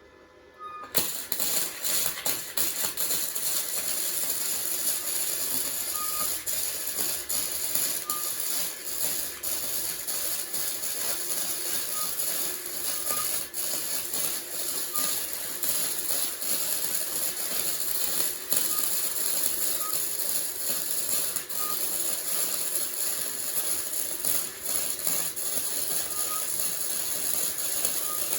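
Flux-core wire welding arc from a Titanium Easy-Flux 125 welder, starting about a second in and crackling and sputtering steadily on 16-gauge mild steel, with the machine set too hot for the thin steel.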